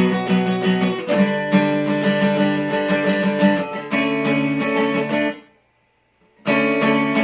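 SQOE Cranberries 41 acoustic guitar strummed with a pick in quick repeated strokes, with the chord changing twice. The strings are cut off abruptly for about a second before the strumming starts again near the end.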